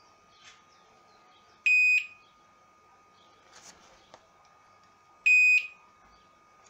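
Multimeter continuity beeper giving two short high beeps about three and a half seconds apart as the probe tip touches the pins of the graphics card's power-stage MOSFETs, with faint clicks of the probe tip in between.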